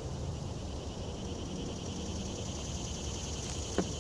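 Insects chirring steadily in the background over a low rumble, with one sharp click of a knife blade against the wooden board near the end.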